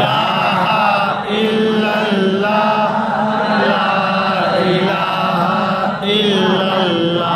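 A man's voice chanting an Islamic devotional recitation, drawing out long held notes that waver in pitch.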